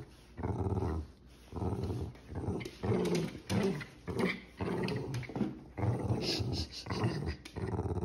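Small dog growling in short rough bursts, one after another, while tugging on a plush rope toy: playful tug-of-war growls.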